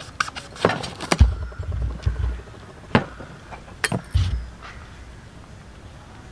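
Kitchen knife chopping passion fruits in half on a plastic cutting board: a run of sharp knocks and dull thuds, two more sharp clicks a little later, then quieter handling near the end.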